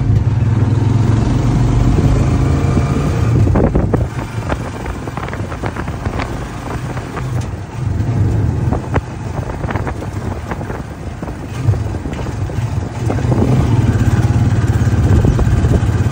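Engine of a small motor vehicle running as it rides along a street, a steady low drone with rattles and knocks from the body. It eases off for several seconds in the middle and picks up again near the end.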